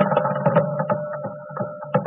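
Live Carnatic concert music in raga Kamboji. Quick, irregular percussion strokes sound over a held melodic line and a steady drone, fullest about the first half second.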